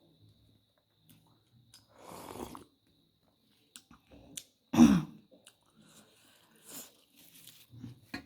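Close-up eating sounds: chewing and crunching on fried chicken phaley, with scattered small mouth clicks. A brief, much louder burst comes just before five seconds in.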